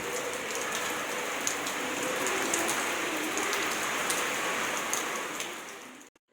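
Steady rain falling, with individual drops ticking on a hard surface; it cuts off suddenly near the end.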